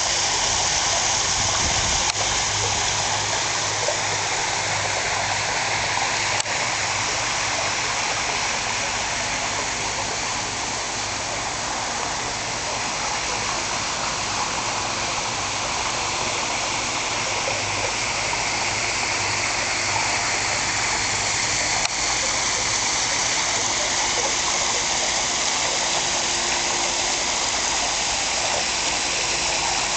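Steady splashing of water falling from a pool's brick waterfall and fountain jets into the pool, easing slightly in the middle before building back.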